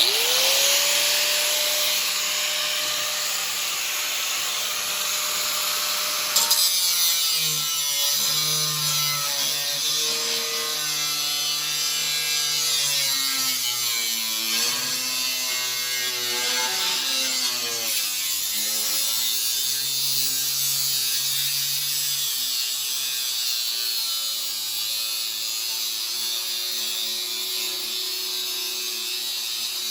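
Angle grinder switched on and spinning up to a steady whine, then cutting out a shim for a baler knife. From about six seconds in, its pitch wavers and sags as it bears into the work.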